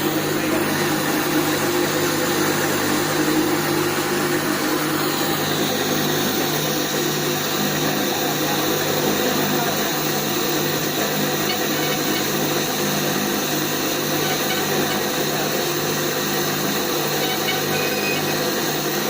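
A machine running steadily: a constant low hum under a broad hissing noise, holding the same pitch and level throughout with no starts or stops.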